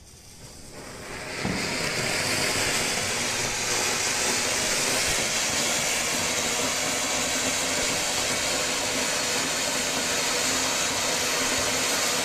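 Supreme Colorkoti anar fountain firework catching and building up over the first second or so, then spraying sparks with a steady, loud hiss.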